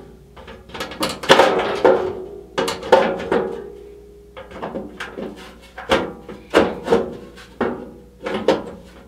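Aluminium top section of a Caselabs Magnum SMH10 computer case being shifted and pushed into alignment on the case body: a string of irregular metal clunks and knocks.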